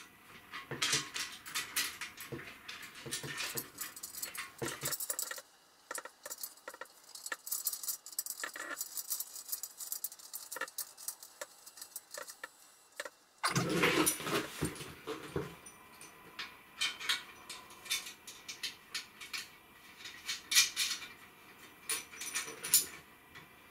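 Metal parts of a bolt-on rear bicycle carrier rack clinking, rattling and clicking as the rack and its clamp and stays are handled and fitted to a mountain bike. The handling goes much quieter for several seconds in the middle, then the clinks pick up again.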